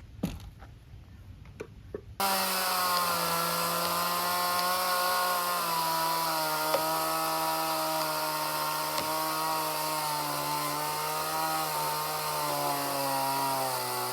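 Chainsaw running at high speed, starting suddenly about two seconds in and holding a steady tone whose pitch eases slowly downward, as in a cut through the pecan trunk. A few faint knocks come before it.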